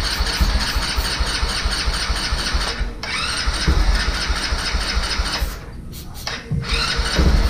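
Electric starter cranking the single-cylinder engine of a Vader 125 Grom-clone motorcycle in repeated bursts, with short breaks between the attempts. The engine turns over but does not catch, because no fuel is reaching the carburetor.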